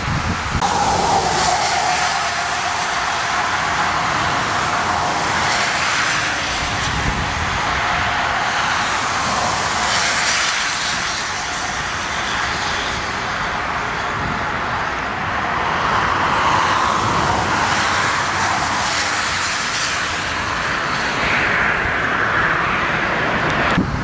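Jet airliner's engines during a landing. A steady engine whine slides a little lower in pitch over the first few seconds, under a loud rushing noise that swells and fades.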